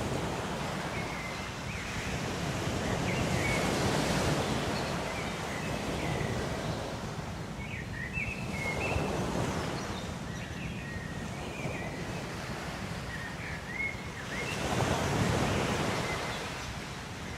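Ocean waves breaking on a shore, the surf swelling and falling back about every five or six seconds, with short high chirps scattered over it.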